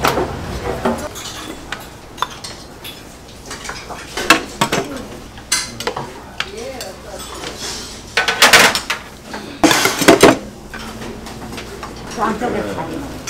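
Stainless steel rice bowls and utensils clinking and clattering against a large commercial rice cooker's pot as rice is scooped out, with louder bursts of clatter about eight and ten seconds in.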